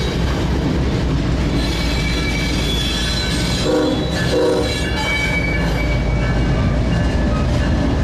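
Train rumbling past, with a high thin squeal of wheel flanges on the curve. Two short horn blasts sound about halfway through.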